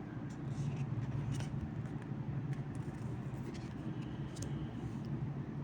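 Oracle cards being handled: a few faint light ticks of cards over a steady low background hum.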